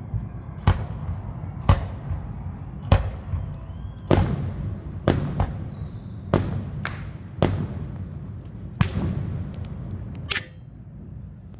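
Fireworks going off: about a dozen sharp bangs at irregular intervals, roughly one a second, over a steady low rumble that drops away near the end.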